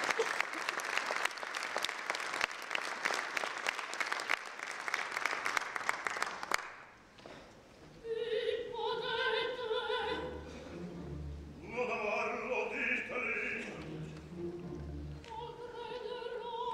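Theatre audience applauding, the applause cutting off about six seconds in; after a short pause the opera music resumes with held notes from the orchestra and a singing voice.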